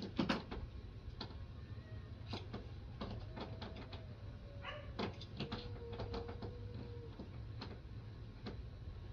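Irregular clicks and knocks of things being handled, someone fumbling to plug in a laptop charger, over a steady low hum.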